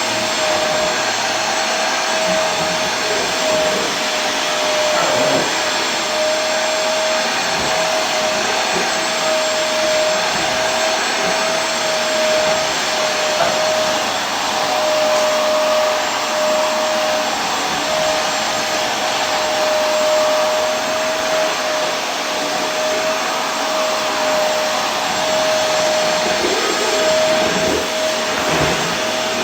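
Vacuum cleaner running steadily: an even rushing whoosh with a constant motor whine.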